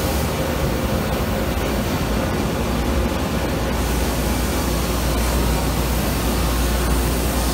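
Steady factory-floor machinery hum and hiss with a low rumble and a faint steady tone, with no punching strikes.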